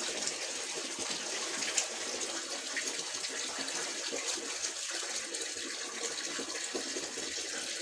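Water running steadily from a tap: an even, unbroken hiss with a few faint ticks.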